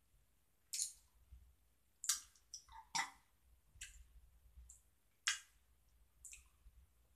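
Faint wet mouth clicks and lip smacks, about one a second, from licking and tasting a sour gummy candy.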